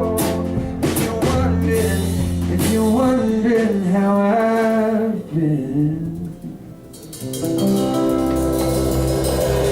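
Live band music near the close of the song: electric band with guitar and drum kit carrying a melody line. About six seconds in the music thins out briefly, then a sustained chord rings over a steady low bass.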